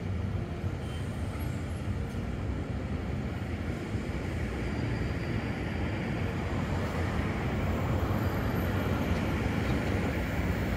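Hamburg S-Bahn electric train running along the tracks: a steady rumble of wheels on rail that grows gradually louder through the second half.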